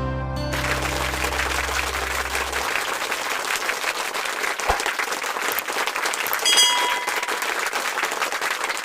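Crowd applauding, a dense patter of many hands clapping that starts about half a second in as the music stops, with a brief high tone partway through.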